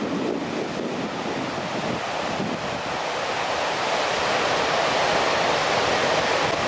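Ocean surf breaking and washing up a stony beach, swelling louder in the second half, with wind buffeting the microphone.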